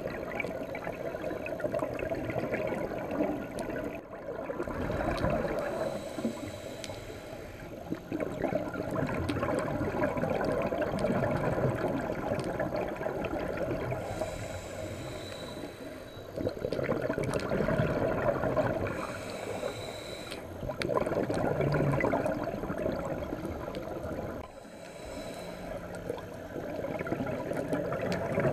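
Scuba regulator breathing heard underwater: a short hiss on each inhale, then a longer burble of exhaled bubbles, repeating several times.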